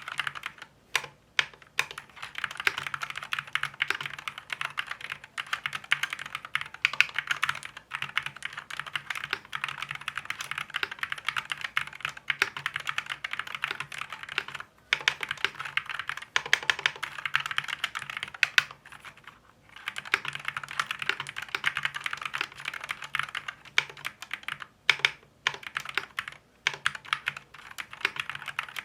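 Fast typing on an Akko Fun 60 Pro keyboard with Akko Glare magnetic switches: a dense run of keystroke clacks, broken by a few short pauses.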